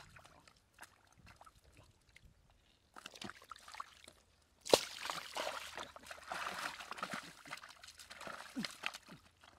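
Water sloshing and splashing, with scattered small drips and clicks at first. A sharp slap about five seconds in is followed by several seconds of continuous splashing.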